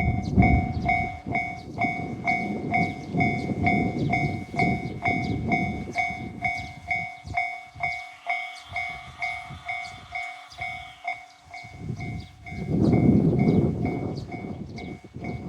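Japanese level-crossing warning bell ringing its two-tone "kan-kan" clang, a little over twice a second, as a train rumbles past through the crossing. The rumble is heaviest in the first half and swells again near the end.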